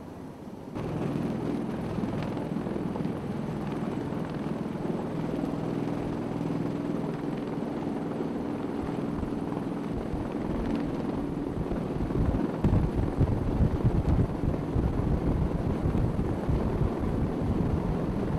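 V-22 Osprey tilt-rotor running: a steady drone of engines and rotors with several humming tones. It cuts in abruptly just under a second in and turns louder, with a low pulsing, about two-thirds of the way through.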